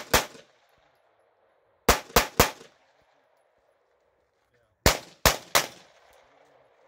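Gunshots fired in quick strings: one right at the start, three within about half a second around two seconds in, and three more about five seconds in. Each shot has a short echo, and it is quiet between the strings.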